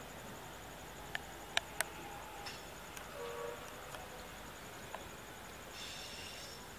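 Night ambience: insects chirping steadily at a high pitch over a low background hiss, with a few sharp clicks about a second and a half in.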